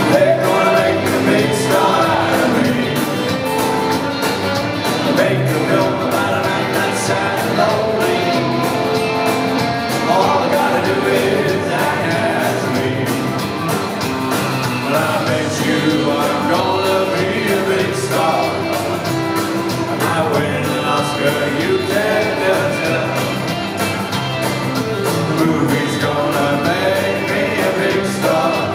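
Live rock band playing a country-rock song: a man singing lead over electric guitars, bass and drums, recorded from the audience in a theatre.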